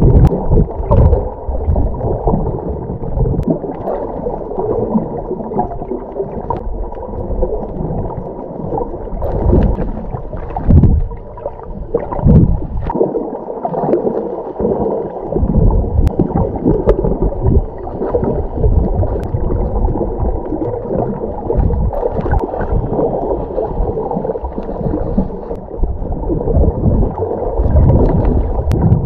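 Muffled underwater water noise while snorkeling: uneven, dull sloshing and gurgling of water moving around the submerged microphone, surging and easing.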